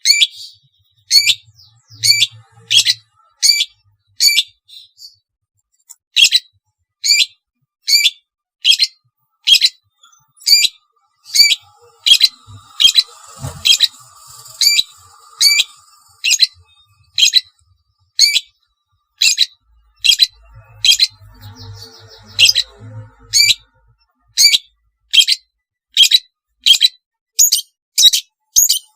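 Long-tailed shrike (cendet) calling: a loud, short, harsh high note repeated about once a second, with a brief pause about five seconds in.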